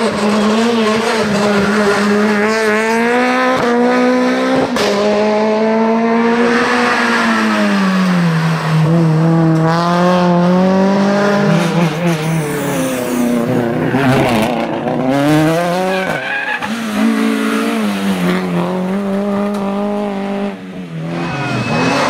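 Rally cars driven flat out one after another, engines revving high and falling back through quick gear changes and braking for corners. A few sharp pops sound around the middle.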